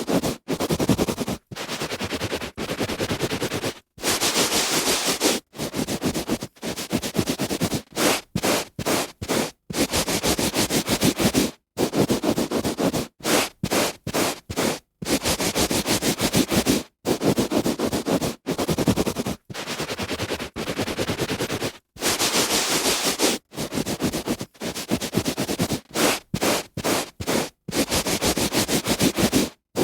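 A hand rubbing back and forth on carpet: a scratchy rustle in strokes of uneven length, from a fraction of a second to about two seconds, each cut off by a brief, sharp silence.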